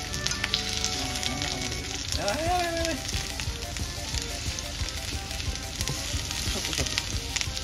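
Daikon radish rounds sizzling and crackling in oil in a hot frying pan as they are turned over with chopsticks, their undersides browned to scorching.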